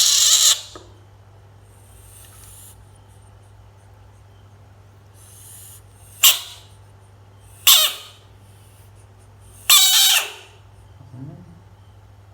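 A frog screaming: four loud, hissing bursts, the first and last about half a second long and the middle two shorter, with fainter ones between.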